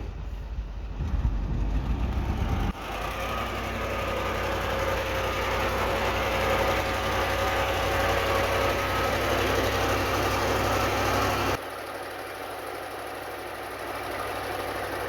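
Heavy earthmoving machinery's diesel engine running steadily. The sound changes abruptly twice, about three seconds in and again near the end, as it cuts between takes.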